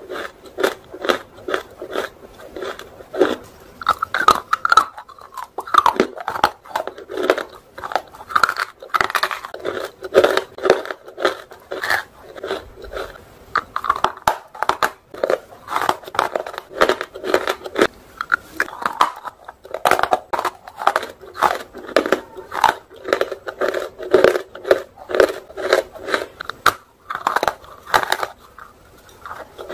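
Close-up dry crunching of half- and fully-roasted nakumat lumps (white, chalky edible clay) being bitten and chewed: a fast, irregular run of sharp crunches, several a second, with brief pauses.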